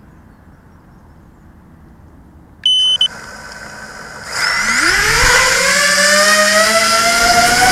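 FPV racing quadcopter on the ground: a short, loud electronic beep as it arms, then about a second and a half later its brushless motors spool up with a steadily rising whine as it lifts off.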